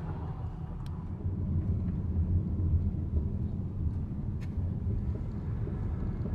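Steady low rumble of a car driving, heard from inside the cabin, growing a little louder after about a second and a half. Two faint ticks sound, about one second and four and a half seconds in.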